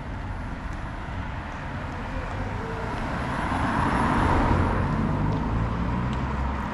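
A Nissan Leaf electric car driving past: tyre and road noise that swells to a peak about four seconds in, then fades.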